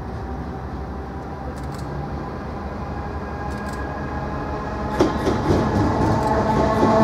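Class 70 diesel locomotive approaching, its GE PowerHaul V16 engine running and growing steadily louder. About five seconds in, sharp knocks of its wheels over the rail joints and pointwork start.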